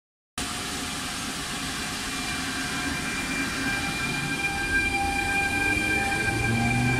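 Trenord E464 electric locomotive moving off slowly past the platform with its regional coaches: a steady whine of several tones from its traction equipment over a low rolling rumble, growing gradually louder.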